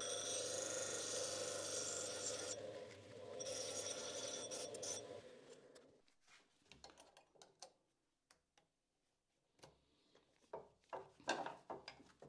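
Built-in hone of a Coborn power scraper: its motor-driven cast iron honing disc running with the scraper blade's tip held against it in diamond paste, a steady whirring grind that dips briefly about three seconds in. It dies away about halfway through, followed by light metallic clicks and taps as the blade is fitted back into the scraper head.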